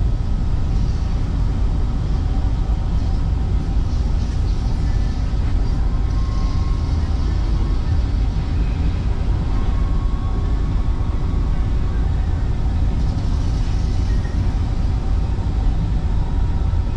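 Manila MRT Line 3 light-rail train heard from inside the car: a steady low rumble of wheels and running gear on the rails as the train runs into a station and slows along the platform, with faint whining tones now and then.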